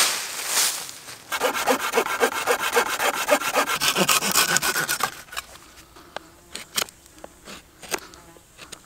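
Hand saw cutting through a wooden branch in rapid, even back-and-forth strokes, stopping about five seconds in. After that come a few scattered sharp clicks and taps as a knife cuts into a small stick.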